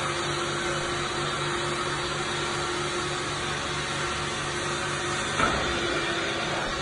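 Hot-water extraction carpet cleaning machine running while its wand works the carpet: a steady rush of suction with a fast low pulsing underneath, about four or five beats a second. There is a brief knock about five seconds in.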